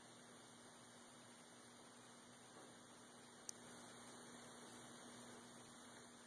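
Near silence: a faint steady hum over hiss, with one tiny click about halfway through.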